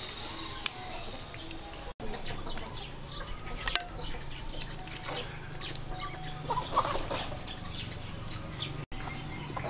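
Chickens clucking now and then, over scattered sharp clicks and rustles.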